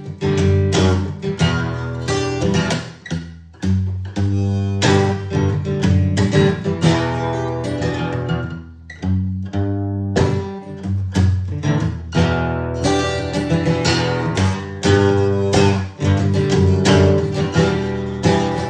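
Guitar strummed in quick repeated chords, with only brief dips in the playing.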